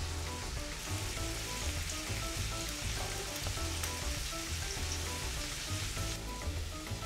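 Background music with a steady bass line over the even sizzle of peppers and onions frying in a pan. The sizzle drops a little about six seconds in.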